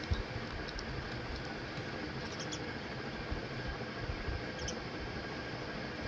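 Steady background hiss with low thumps, and a few faint, short high chirps of small birds now and then.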